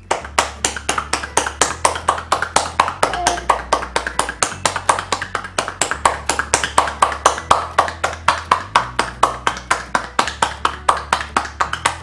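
Rapid, even claps of cupped palms striking a child's back, about five a second: chest percussion in a drainage massage to loosen mucus.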